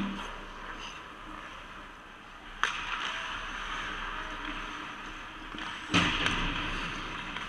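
Ice hockey play: skates scraping on the ice, with two sharp knocks of stick and puck, one about a third of the way in and a louder one near the end.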